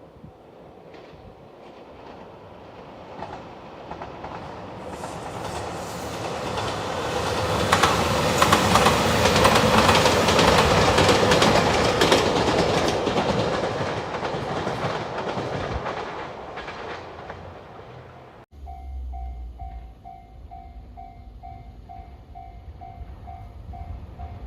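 A train passes over a level crossing: its sound builds over several seconds, is loudest mid-pass with rapid clicking of the wheels over the rail joints, then fades away. After a sudden cut near the end, a level crossing warning bell rings in an even repeating ding, about two and a half strikes a second.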